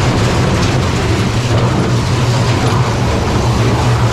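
Kiddie roller coaster train rolling along its track: a loud, steady rumble of the wheels.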